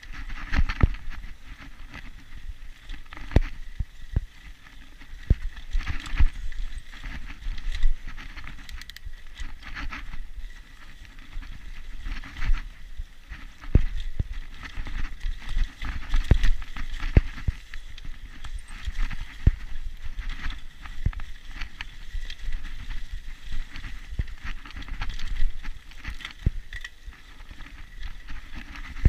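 Mountain bike rolling along a dirt singletrack trail: tyre noise over the ground, with frequent irregular knocks and rattles as it goes over bumps.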